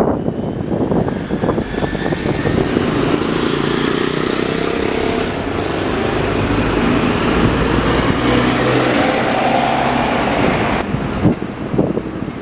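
Bus engines running as buses drive past in street traffic, with the engine pitch shifting as they move off.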